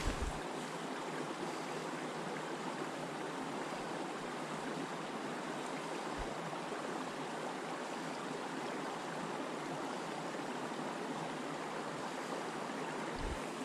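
Steady rush of running creek water.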